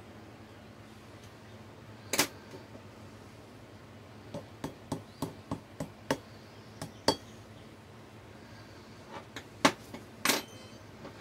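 Sharp taps and clicks of a hand tool knocking against a small mould holding a copper skull. There is one loud tap about two seconds in, a quick run of about eight lighter taps in the middle, and a few more near the end, the last with a short ring.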